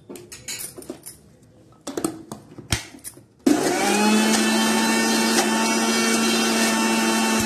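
A few knocks and clatters, then about halfway through an electric kitchen mixer grinder switches on abruptly and runs steadily with a loud motor whine, grinding fenugreek-leaf and coriander chutney paste.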